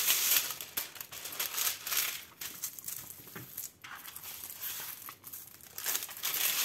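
Clear plastic film on a diamond-painting canvas crinkling and rustling in irregular bursts as the canvas is handled, turned around and smoothed flat by hand.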